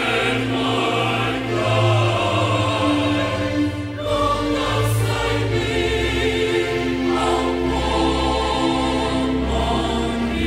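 Mixed choir of women and men singing in parts, holding long sustained notes.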